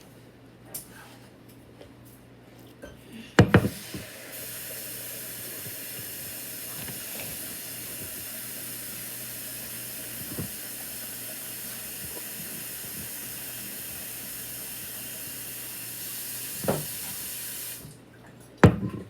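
Tap water running steadily into a sink for about 13 seconds, turned on and off abruptly. Loud knocks just before it starts and near the end.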